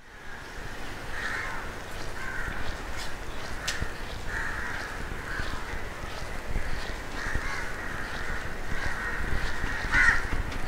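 Crows cawing repeatedly over a steady outdoor background hiss, which rises from silence at the start; one call about ten seconds in is the loudest.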